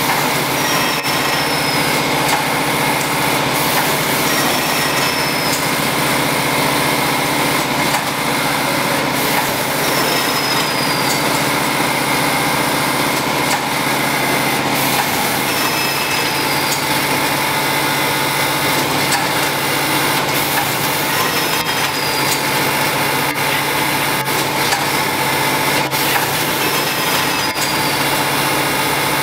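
Automatic vertical form-fill-seal coffee powder packaging machine running: a steady motor hum with scattered clicks, and a short, high, falling squeak roughly every five to six seconds.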